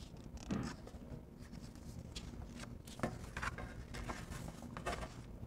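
A picture-book page being handled and turned: soft paper rustling with a few light taps and clicks.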